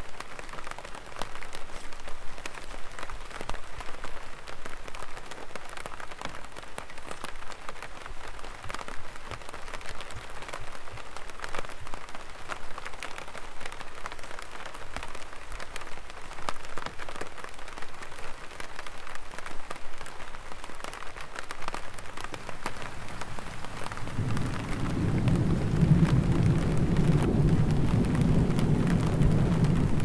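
Light rain falling on an umbrella, a dense run of small drops ticking. Near the end a low rumble of thunder rolls in and keeps going.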